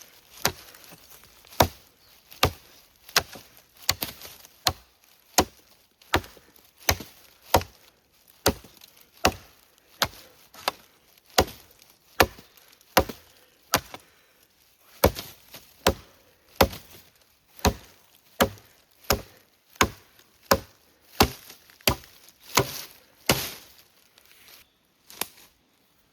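Wood being chopped: a long, regular series of sharp strikes, about one every three-quarters of a second, with a brief pause about halfway through and the strikes thinning out near the end.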